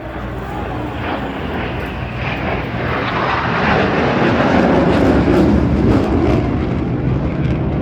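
Eurofighter Typhoon's twin EJ200 jet engines roaring in a display pass. The roar grows louder over the first few seconds, and its pitch falls about halfway through as the jet goes by.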